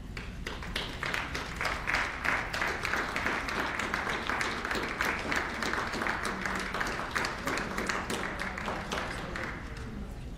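Ringside audience applauding: a steady spell of clapping that starts just after the beginning and dies away near the end.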